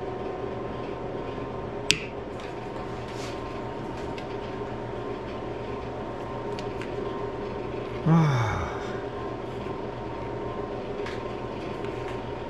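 One sharp tap about two seconds in, knocking the end of a steel shaft held in a lathe chuck toward true, over a steady background hum. A short falling voice sound comes a little past the middle.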